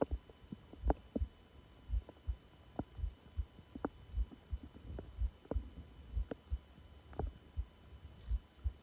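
A person's stomach growling: short, irregular gurgles and pops over a run of soft low thuds about twice a second.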